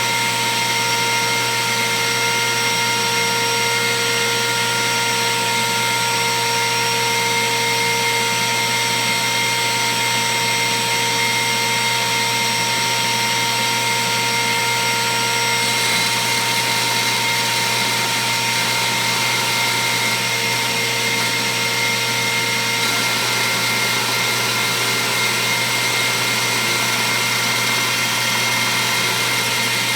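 A router on a router table running at speed with a 1/8-inch single O-flute down-spiral bit, milling acrylic. It makes a steady high whine over a rushing noise. The tone shifts slightly about halfway through, and again later.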